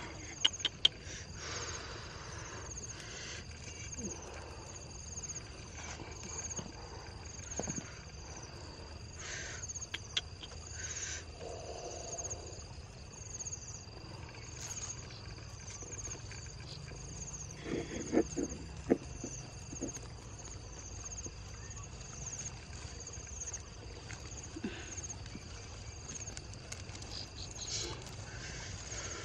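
Insects chirping steadily in a high, pulsing trill. Scattered clicks and rustles come from the handling of a bamboo fish trap and a nylon mesh net, with the loudest cluster of clicks about two-thirds of the way through.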